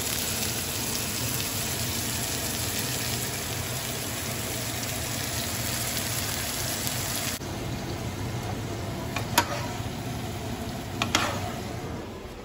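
Steak sizzling in a skillet of melted butter with rosemary and garlic, a steady frying hiss. About seven seconds in the hiss drops away sharply, and a few sharp clinks of cookware follow.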